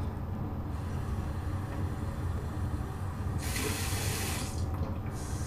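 A water tap runs briefly, for about a second starting about three and a half seconds in, adding a little water for lathering shaving soap. A steady low hum lies under it throughout.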